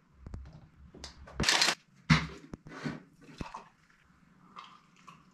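A plastic shaker bottle and scoop handled while mixing a powdered drink: a string of scrapes, clicks and rattles, loudest about a second and a half and two seconds in, then the drink poured from the shaker into a glass tumbler.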